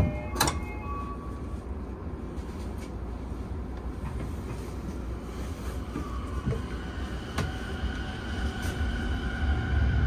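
A subway car's sliding door knocks shut about half a second in, followed by the low rumble of the electric train; about six seconds in a motor whine rises in pitch and then holds as the train pulls away, growing louder near the end.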